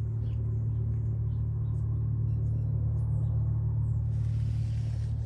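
A steady low hum, with a few faint light ticks scattered through it.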